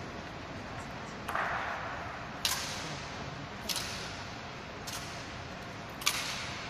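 Rifle drill by a ceremonial honor guard: a series of sharp clacks from hands slapping and snapping bayoneted rifles in unison, about one every second and a bit, the last the loudest, ringing slightly in a large stone hall.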